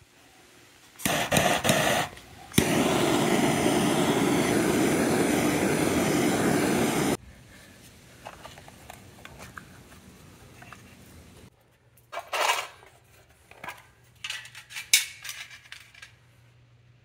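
Handheld gas torch flame hissing, first in a short burst about a second in, then steadily for about four and a half seconds before cutting off suddenly, heating a metal tin to make char cloth. Later, light clicks and scrapes from the metal tin being handled.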